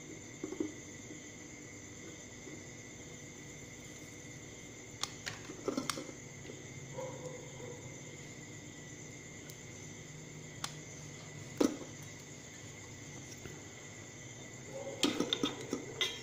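Handling noise while soldering a circuit board with a soldering gun: a few sharp clicks and knocks, with a quick cluster of them near the end. Underneath is a faint steady high-pitched drone.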